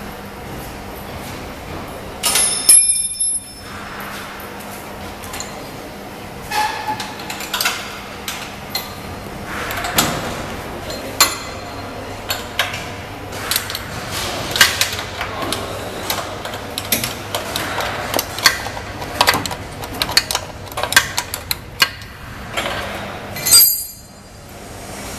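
Hand tools working on the metal frame and roller brackets of a conveyor belt: scattered clicks and small metallic knocks throughout, with two louder ringing metal clinks about two seconds in and near the end.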